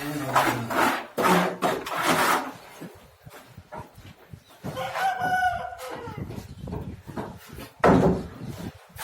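Chickens clucking, with a rooster crowing once about five seconds in, among scattered knocks and clatter.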